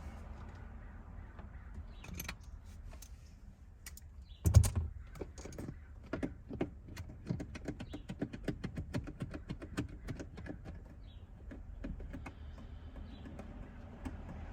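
Small metal hardware and hand tools clicking and rattling during work on a car's interior, with one sharp knock about four and a half seconds in followed by a run of quick irregular clicks.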